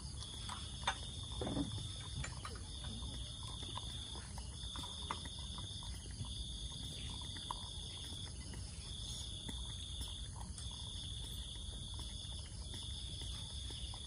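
Insects trilling in a high, even note, broken into pulses of a little over a second with short gaps, over a low steady hum, with a few faint clicks.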